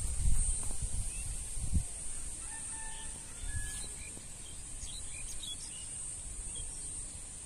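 Wind buffeting the microphone with a few knocks for the first couple of seconds, then birds chirping in short scattered calls, over a steady high hiss.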